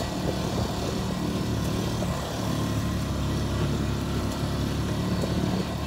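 Engine of a small side-by-side utility vehicle running steadily while it drives, a low even hum.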